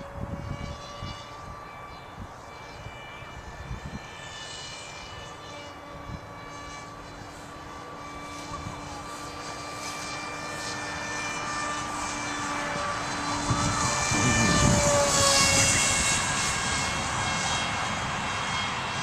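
Electric motor and 6x4 propeller of a small foam-board RC plane whining steadily in flight, the pitch wavering slightly with the throttle. It grows louder toward a peak about three quarters of the way through as the plane comes closer, then eases off a little. Wind buffets the microphone throughout.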